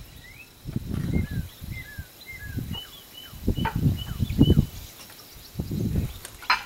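Wind buffeting the microphone in loud gusts, with small birds chirping short calls and a quick run of brief whistled notes. A sharp click near the end as the storm door is pushed open.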